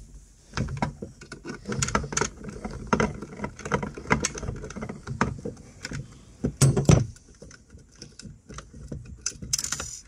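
Hand crimping tool squeezing a terminal onto a wire, amid the rustle and clicks of wires and tool being handled. The loudest, a pair of knocks, comes a little before seven seconds in.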